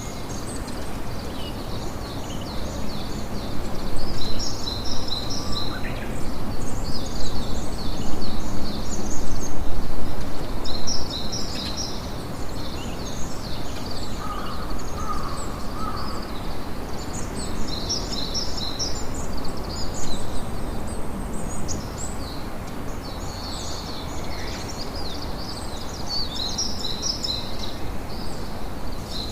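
Small birds chirping in repeated quick clusters over a steady low background noise, with a brief lower bird call in the middle.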